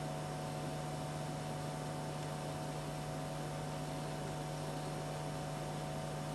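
Steady low electrical hum with a few faint higher tones over an even hiss, unchanging throughout, with no clicks or other events.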